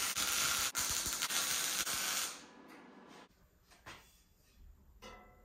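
Electric arc welding on a steel tube frame: a dense crackling hiss that stops a little over two seconds in. Faint taps and a small knock follow as steel tube is handled.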